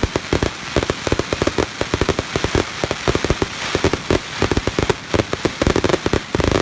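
A fireworks display going off in a rapid, continuous barrage: many bangs and crackles every second, overlapping, with no pause.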